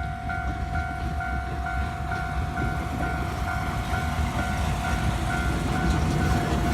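Japanese railway level-crossing alarm ringing steadily, a repeating electronic ding about twice a second, over the rumble of an approaching train that grows louder toward the end.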